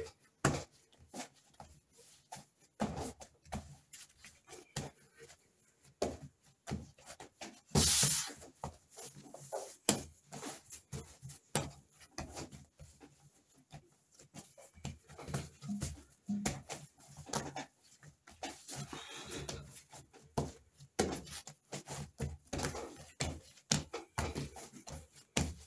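Slightly sticky pulque bread dough being kneaded by hand on a work surface: irregular soft thumps and slaps, with a louder, longer burst about eight seconds in.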